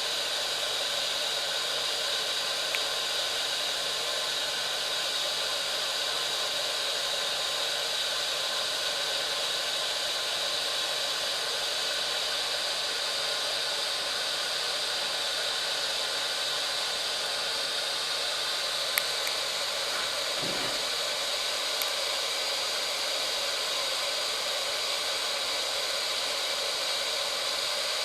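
Hot air gun of a Gordak 863 rework station blowing steadily, a hair-dryer-like rush of air and fan noise. A few faint clicks are heard, at about 3 seconds in and again near 19 and 22 seconds.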